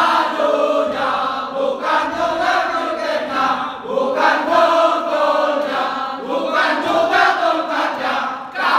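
A group of young men singing together in unison, a loud chant-like group song with held notes and few breaks.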